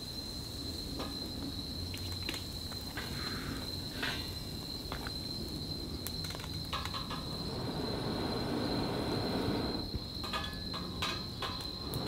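Crickets trilling in the night woods, one steady high-pitched trill with other chirping around it. A few sharp clicks and crackles break in now and then, and a low rustling grows louder in the second half.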